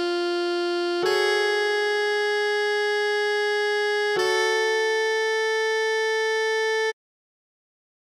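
Computer-played alto saxophone sound holding the closing notes of a melody: three long, steady notes, each higher than the last. It cuts off suddenly about seven seconds in.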